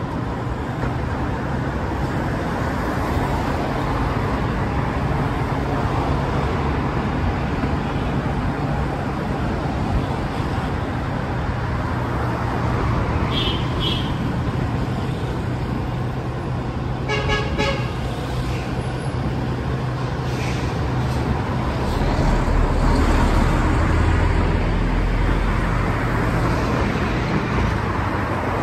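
Motor vehicle running in road traffic: a steady low engine hum with road noise. Short horn toots sound a little past the middle, and the low rumble swells for a few seconds near the end.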